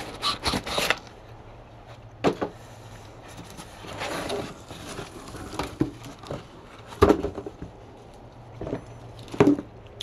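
Cardboard box and cardboard packing insert scraping, rustling and knocking as a cast iron sump pump is lifted out by hand. Several quick rustles in the first second, then separate knocks and scrapes, the sharpest about seven seconds in.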